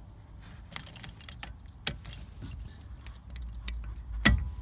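Light metallic clicks and rattles from a small screwdriver probing the release hole on top of a Vauxhall Zafira A ignition barrel housing, pressing the barrel's release catch. The clicks come unevenly, a cluster about a second in and the sharpest one near the end.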